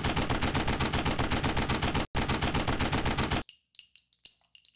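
Automatic gunfire, a rapid burst at about seven shots a second with a brief break about two seconds in, stopping about three and a half seconds in. Scattered metallic clinks and pings follow and fade out.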